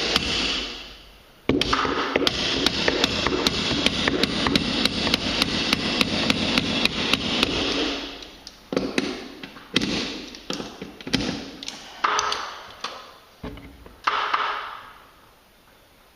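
Hammer blows on a garage door's torsion spring and winding cone, working the cone back into the spring's end: a fast run of metal strikes, about five a second, then slower separate blows that ring briefly.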